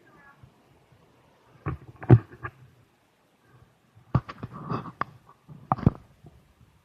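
Three clusters of short, muffled knocks and bumps, the loudest about two seconds in, with quiet between them.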